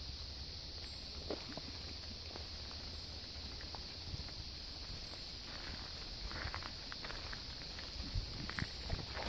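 Quiet, irregular footsteps on a gravel path, with a few sharper steps near the end.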